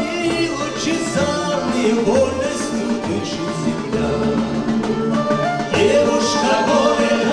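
Folk instrument orchestra of plucked lutes, accordions and bowed strings playing an instrumental passage between the verses of a song.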